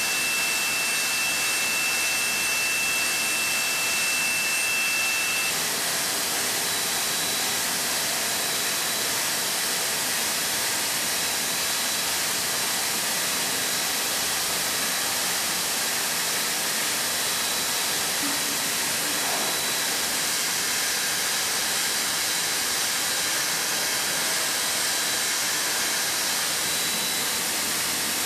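CNC machining centre milling hardened steel with a ball-nose end mill: a steady hiss of machine and cutting noise, with a high steady whine that stops about five seconds in.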